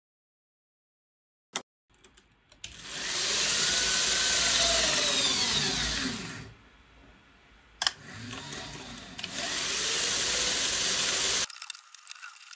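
Small DC gear motor driving a 3D-printed PLA herringbone gearbox, whirring as it winds string onto a shaft under load, with faint gear whine rising and falling in pitch. It runs for about four seconds, drops away after a click, then runs again for about three and a half seconds before cutting off suddenly.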